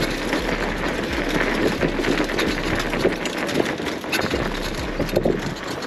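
Fat bike's wide tyres rolling fast over a rough dirt and gravel track, a steady crunching rumble with many small clicks and knocks as stones and bumps jolt the bike.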